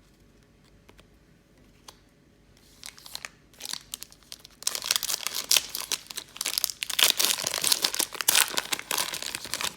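A trading-card pack's wrapper being torn open and crinkled by hand, with a few short rustles about three and four seconds in, then about five seconds of dense, loud crackling and tearing.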